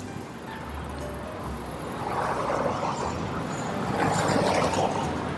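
Road traffic: a car passes on the street, its noise swelling about two seconds in and easing near the end, over a low rumble of wind on the microphone.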